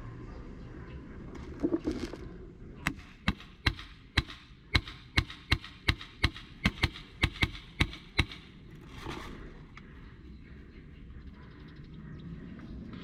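Airsoft gun firing a run of about fifteen quick semi-automatic shots, two to three a second, starting about three seconds in and stopping a little after eight seconds.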